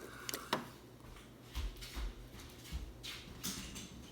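Handling noises of textured monkey noodle fidget toys: soft rustles, light clicks and a few low thumps, scattered and irregular.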